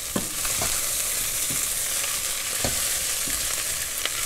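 Chopped fennel and onion sizzling steadily as they fry in olive oil in a pan, with a spatula knocking and scraping against the pan about six times as the vegetables are stirred.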